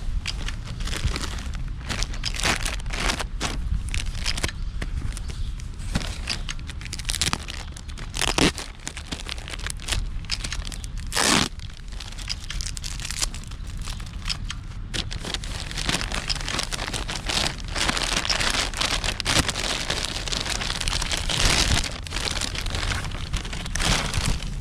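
Packaging being unwrapped and handled: crinkling and rustling with many short clicks and knocks, over a steady low hum.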